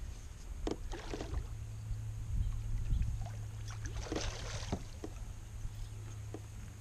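A hooked largemouth bass thrashing and splashing at the water's surface about four seconds in, with a few lighter splashes or knocks scattered around it, over a low steady rumble.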